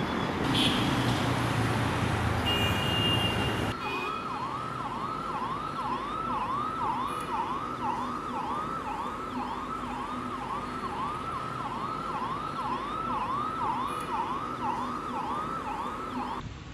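About four seconds of loud street noise, then an electronic siren yelping up and down rapidly, about two sweeps a second, which cuts off abruptly near the end.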